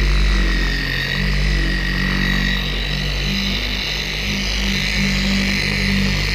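Porter-Cable 7424 dual-action polisher running steadily with a high whine as its foam pad works wax into a truck's paint. Electronic music with a bass line plays underneath.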